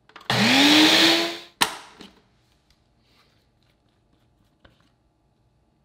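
Single-serve blender whipping heavy cream: the motor is run for about a second, its whine rising in pitch as it spins up, then stops with a click. A few faint clicks follow as the cup and blade unit are handled.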